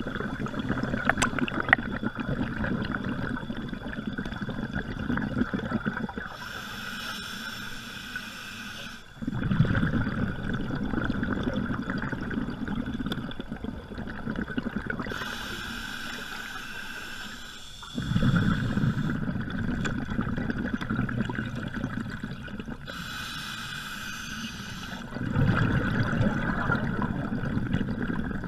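Scuba diver breathing through a regulator underwater: three hissing inhalations a few seconds long, about eight seconds apart, each followed by a longer burble of exhaled bubbles.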